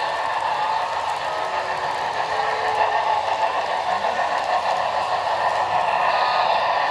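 HO-scale model trains running on the track: a steady clatter and rattle of wheels and cars rolling past.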